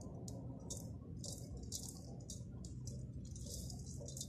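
Coarse salt grains rustling and trickling as a hand crumbles and sprinkles them over cut radish in a metal bowl: a faint run of short, irregular hissy rustles.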